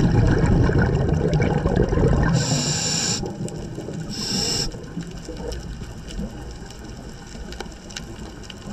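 Scuba diver breathing through a regulator underwater: a rush of exhaled bubbles for the first two seconds or so, then two short hisses of air from the regulator, the second about a second after the first.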